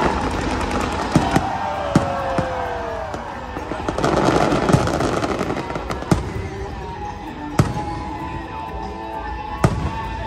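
Fireworks display: aerial shells bursting with sharp bangs every second or two, and a dense stretch of crackling about four to five seconds in, over music playing underneath.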